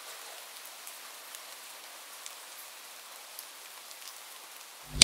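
Steady rain falling, an even hiss with faint scattered drop ticks, and a short sharp hit at the very end.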